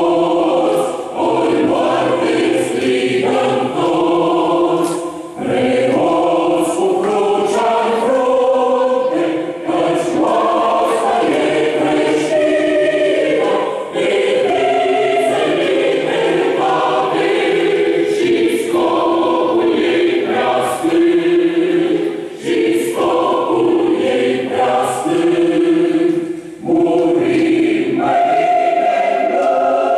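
A group of men and women singing a song together as a choir, in long held notes with short breaks between phrases.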